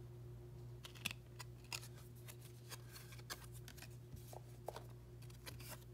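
Football trading cards being handled and flipped through by hand: scattered light clicks and slides of card stock, over a faint steady low hum.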